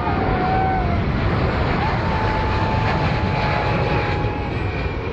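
Boeing 777X's twin GE9X turbofans at takeoff thrust as the jet lifts off and climbs away: a loud, steady jet roar.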